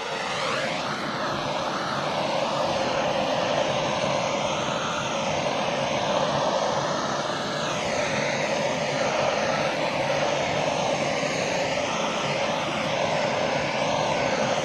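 A handheld electric blower running steadily, a continuous rush of air whose tone wavers as it is moved about.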